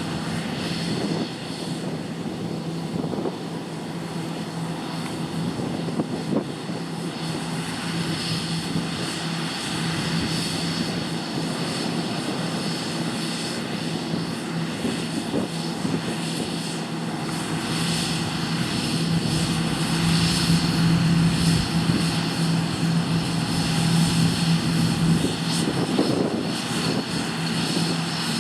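John Deere T560 combine harvester running while cutting winter barley: a steady engine drone with a constant low hum and a hiss from the machine, growing louder about two-thirds of the way in.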